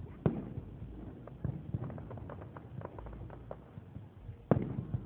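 Fireworks going off in the distance: a loud bang just after the start and a louder one about four and a half seconds in, with scattered smaller pops and crackles between.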